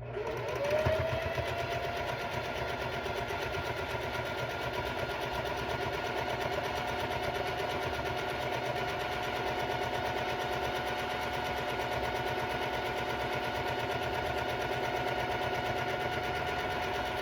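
Electric sewing machine sewing a quilt seam in one long continuous run: the motor whirs up to speed in the first second, holds a steady speed with a fast, even needle rhythm, and winds down and stops near the end.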